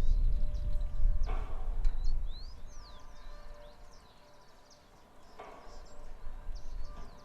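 Wind gusting against the microphone with a low rumble that eases after about two seconds. Small birds chirp in the quieter stretch, and the windmill gives a brief creak or clank about a second in and again near the end.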